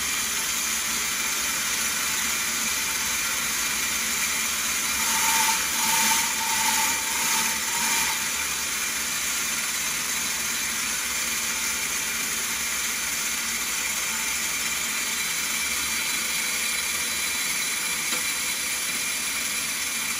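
Stone bead milling machine running, rough stone beads rattling and grinding against its milling plate as water from a hose runs into the bowl. About five to eight seconds in, the sound gets briefly louder.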